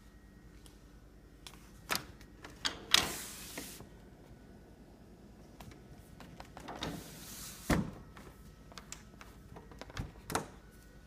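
A window sash being worked by hand: a scattering of sharp knocks and clicks from the frame, and a short scraping slide in its track about three seconds in and again about seven seconds in.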